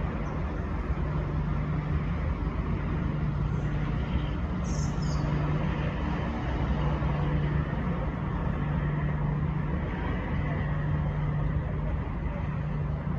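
Steady low rumble of road traffic with a constant low hum underneath, and one short high-pitched chirp about five seconds in.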